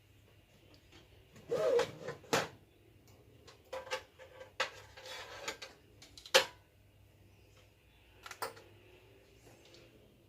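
Scattered clicks, taps and knocks of hands working with small tools and wires on a TV's backlight assembly, over a faint steady hum; the sharpest knock comes about six seconds in.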